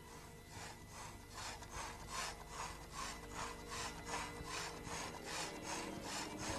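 Animated house robot's sound effect: dry, rhythmic scraping strokes, about three a second, like a rasp or brush rubbing on wood, with a faint low hum beneath.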